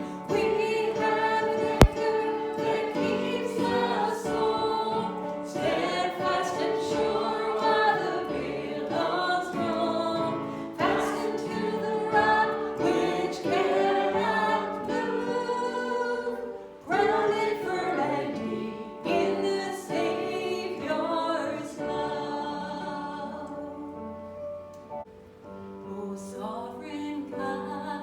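A church congregation singing a hymn together with instrumental accompaniment. A single sharp click sounds about two seconds in. The singing softens about three-quarters of the way through, then goes on more quietly.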